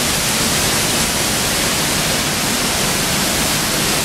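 The Hinterrhein waterfall plunging into a rock gorge close by: a steady, loud rush of falling water.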